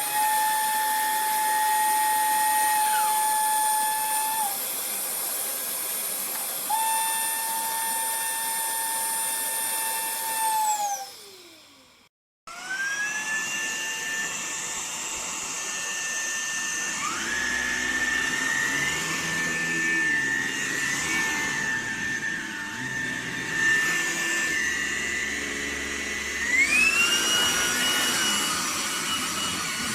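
Vax HomePro Plus cordless stick vacuum running with a high motor whine that shifts in pitch now and then. About eleven seconds in it winds down and stops. It starts again moments later, rising to a higher whine, and near the end steps up to a higher pitch still.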